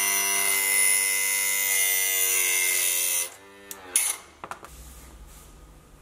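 Electric piston-ring end-gap grinder running with a steady whine. It is switched off about three seconds in and winds down in pitch, followed by a few sharp clicks as the ring is handled.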